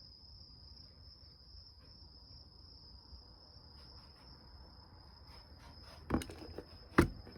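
A steady high-pitched electronic tone, like a whine, with a few light clicks and two louder sharp knocks near the end.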